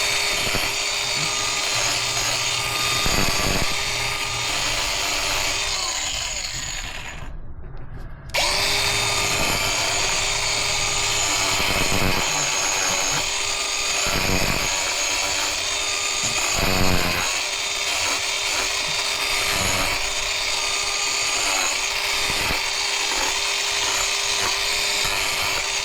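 Angle grinder running as it grinds down a miniature horse's hoof wall, with a steady motor whine over the hiss of the abrasive disc and brief dips as the disc bites. About six seconds in the motor winds down, then it starts up again about two seconds later.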